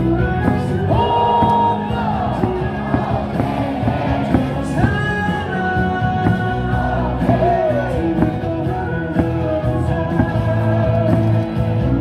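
Loud cheer song played over a baseball stadium's PA system, with fans singing and shouting along.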